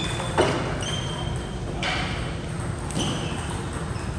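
One sharp thud about half a second in, then two softer knocks, with short high-pitched chirps in between, echoing in a large room.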